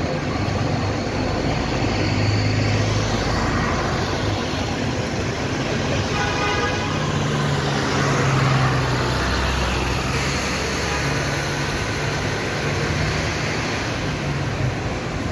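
Traffic on a busy city road: the steady engine and tyre noise of passing vehicles, with a vehicle horn sounding briefly about six seconds in.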